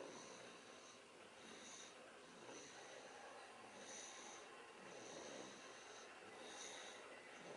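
Faint snoring of a sleeper breathing deeply, with a soft high wheeze on the breaths recurring about once a second.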